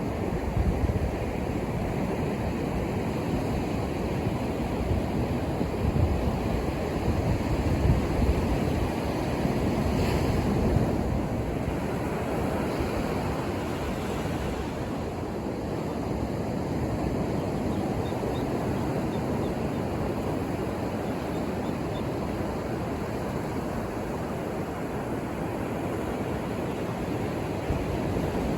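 Ocean surf breaking and washing onto a sandy beach, a continuous rush of water that swells louder about a third of the way in and then settles.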